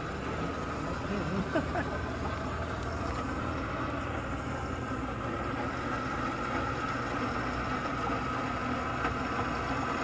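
Airbus AS350 helicopter's turbine engine running on the ground, a steady high whine over a low rumble.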